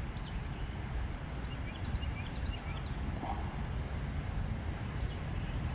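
Outdoor creek-bank background: a steady low rumble with a few faint, short bird chirps about two seconds in.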